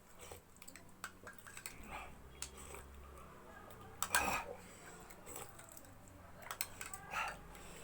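Spoon and chopsticks clinking and tapping against a soup bowl during eating: a few scattered light clicks, the loudest about four seconds in.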